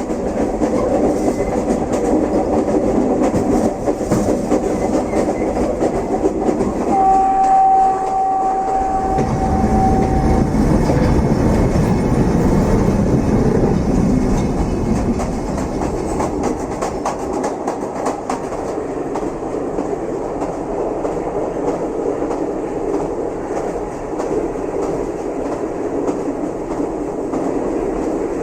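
A train running along the track: a steady rumble with wheels clacking over the rail joints. About seven seconds in, the train's horn sounds once, a steady blast of about three seconds.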